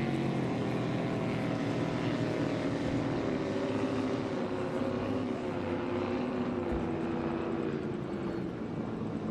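A steady, droning engine whose pitch slowly wavers up and down.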